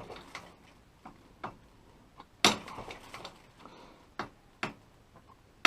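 A handful of short, sharp clicks and knocks at irregular intervals, the loudest about two and a half seconds in: tools and metal parts being handled during work on a seized bolt.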